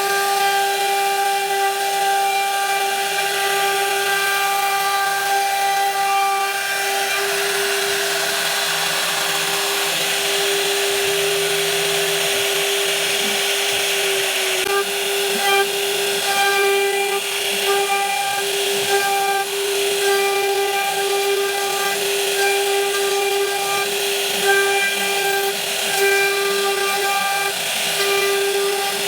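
CNC router spindle running with a steady high whine while the bit cuts wood, over a rasping hiss of cutting that grows heavier in the middle and later comes and goes.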